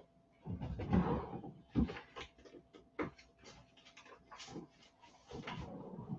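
Irregular knocks, clicks and rustling of things being handled and moved about, with a longer rustle about a second in.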